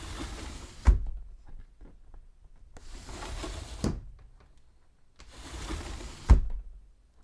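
Fusuma, a Japanese paper-covered sliding door, slid along its wooden track three times. Each slide ends in a knock against the frame; the first and last knocks are the loudest.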